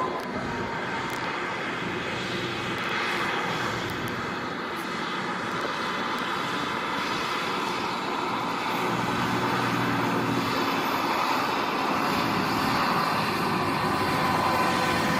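A steady engine drone, growing a little louder toward the end.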